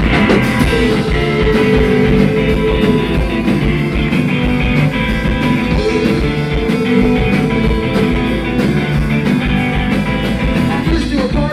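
Live rock band playing an instrumental intro with guitar.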